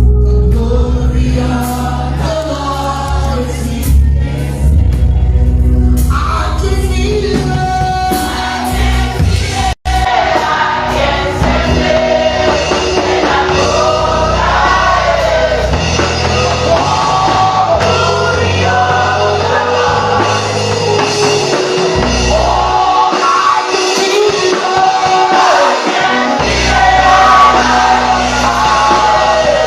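Gospel worship song sung by a group of voices over band accompaniment with a strong bass. The sound cuts out for an instant about ten seconds in.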